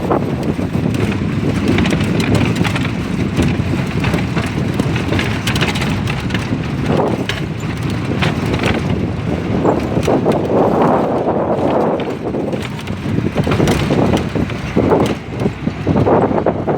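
Wind buffeting the microphone: a loud, gusty rumble that swells and dips irregularly.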